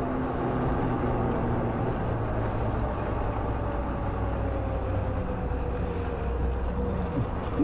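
Renegade Mini electric ATV's motor whining as it rides, the whine falling slowly in pitch, over a low rumble of wind and tyres on the concrete deck.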